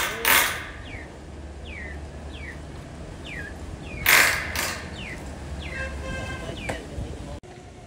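Corded electric drill boring into a galvanized steel purlin: loud grinding bursts just after the start and about four seconds in, with a steady low motor hum between. Short falling bird chirps repeat about once a second.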